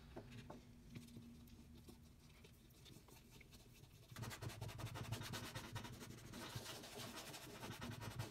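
Faint rubbing and scuffing of a cloth working saddle soap into a piece of dyed vegetable-tanned leather, growing louder about halfway through; before that only a few soft handling clicks.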